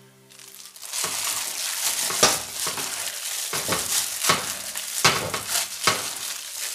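A hand in a plastic bag kneads raw chicken pieces through a wet flour-and-milk batter in a stainless steel bowl, with the bag rustling. The mixing comes as a run of quick, uneven strokes, starting about a second in.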